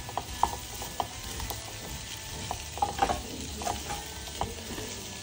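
Wooden spatula stirring whole baby potatoes around a nonstick pan, with irregular scrapes and soft knocks, over a light sizzle of the potatoes frying in oil on low heat.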